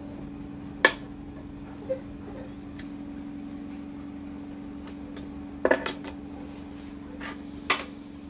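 Metal vise parts of a small Wilton Chicago No. 3 bench vise clinking and knocking as it is put back together: a few sharp clinks, two of them close together about two-thirds of the way through, over a steady low background hum.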